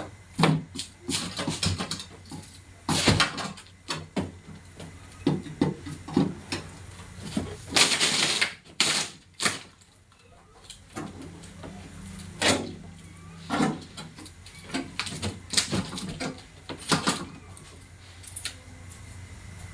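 Irregular knocks, clicks and scrapes of hands and tools working on a two-door refrigerator's body panels, with a longer scrape about eight seconds in, over a steady low hum.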